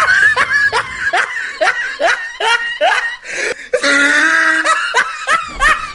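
Laughter in a run of short, rapid bursts, about three a second, broken by one longer held note about four seconds in.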